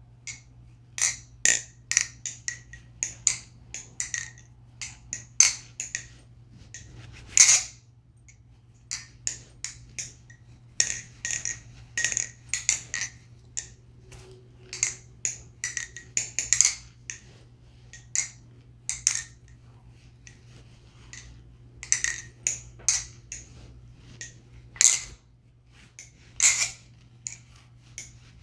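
MachineWise Mayrn Lite balisong being flipped: its handles swing around the pivots and clack against each other and the blade. This gives irregular sharp metallic clicks, in flurries of several a second with short pauses and a few louder single clacks.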